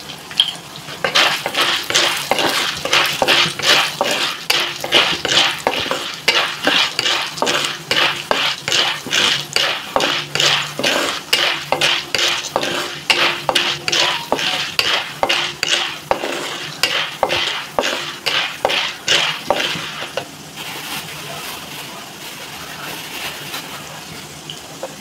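Wooden spatula stirring raw popcorn maize kernels through hot oil in a pan: repeated scraping, rattling strokes, about two to three a second, with the oil sizzling. The stirring stops about twenty seconds in, leaving a quieter sizzle; the kernels have not yet begun to pop.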